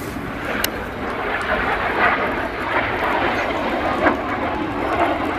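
Jet engine noise from a Red Arrows BAE Hawk T1 on a display pass: a steady, broad rush with no clear tone, with two short clicks, about a second in and about four seconds in.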